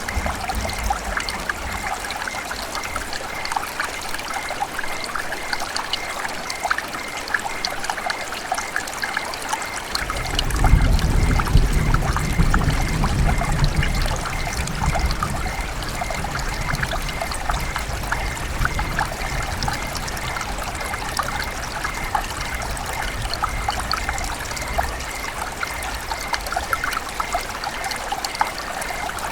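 River water running and trickling, a steady splashing dense with small droplet plinks. A low rumble joins it for a few seconds about ten seconds in.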